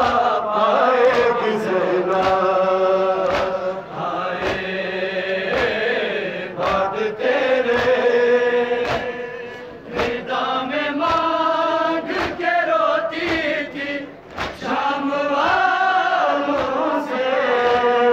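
Male voices chanting a Shia noha (mourning lament) in long held, drawn-out notes, with regular sharp slaps of hands striking chests in matam keeping the beat.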